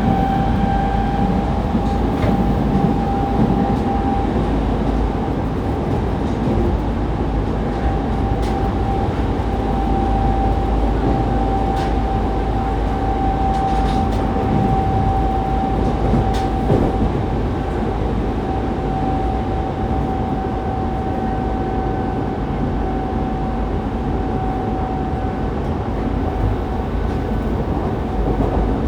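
Running noise inside a Fukuoka City Subway 2000 series train with a Hitachi GTO-VVVF, cruising between stations: a steady rumble of wheels on rail under a steady whine held at one pitch, with a few sharp clicks along the way.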